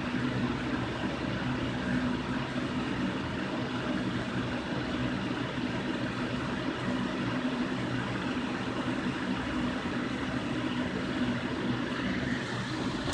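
Ceramic Halloween decoration's built-in sound unit giving out a steady, distorted buzzing static with a low hum through its small speaker: a malfunctioning sound that the owner says needs fixing.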